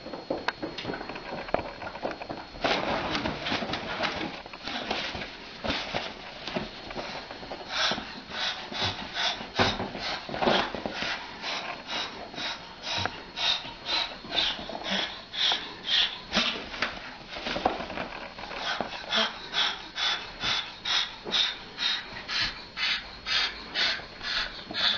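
Moluccan cockatoo giving a long run of short, breathy huffs, about two a second, as a threat display toward a cat.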